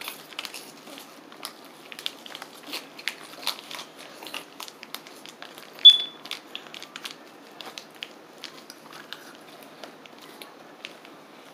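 Plastic freeze-pop sleeves crinkling and crackling in irregular short bursts as they are handled and eaten from. About six seconds in there is one brief, loud, high squeak.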